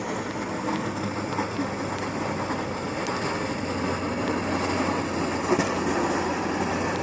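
Snowplow truck going by on a snowy street: a steady rumble that grows slowly louder.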